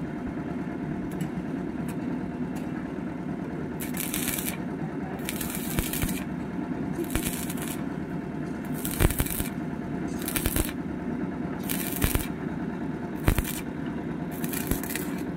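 Stick (MMA) welding arc burning on a steel tube joint: crackling and sizzling in repeated bursts of a second or less as the coated electrode is run along the seam, with a few sharp cracks, over a steady low hum.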